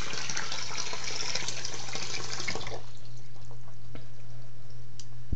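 Bathroom sink tap running, turned off about halfway through, leaving a low steady hum and a few faint clicks.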